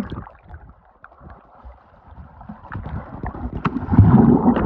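Muffled underwater sound of a swimming pool as the camera goes under: bubbling and water movement, quiet at first and building to a low churning rumble about four seconds in.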